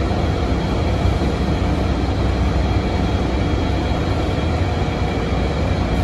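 Cabin noise of a 2006 NABI 40LFW transit bus under way: the steady drone of its Cummins ISM diesel engine and Allison B400R automatic transmission, mixed with road noise.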